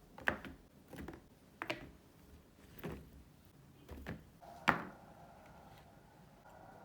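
About six light knocks and thuds at uneven intervals, the loudest one near the end, as things are handled and set down. A faint steady hum comes in near the end.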